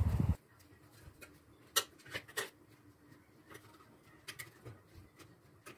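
Scattered light clicks and taps from kitchen tongs lifting air-fried potato slices out of the air fryer basket onto a ceramic plate, about half a dozen separate knocks spread through the stretch.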